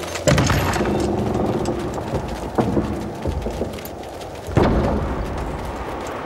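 Three loud booms, about a quarter second, two and a half seconds and four and a half seconds in, each trailing off low over a steady noisy hiss.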